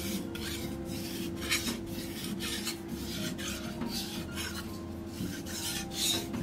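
Back of a single-bevel stainless high-carbon kitchen knife being rubbed back and forth on a wet fine-grit Kuromaku #12000 whetstone, a rasping stroke about twice a second. This is back-flattening (ura-oshi), with the blade tilted slightly because the back would not contact the stone when held flat.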